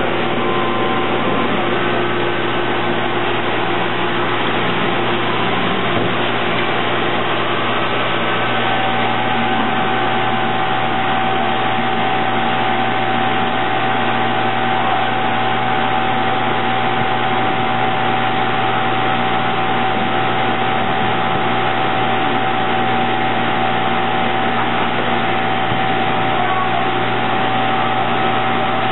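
Steady factory machinery noise from a plastics-moulding robot cell: an even mechanical hiss with steady hums and whines. A higher whine grows stronger about eight seconds in.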